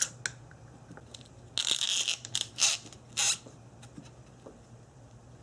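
Aerosol can of penetrating oil spraying onto a rubber vacuum hose fitting in three short bursts of hiss, the first about a second and a half in, after a click at the start.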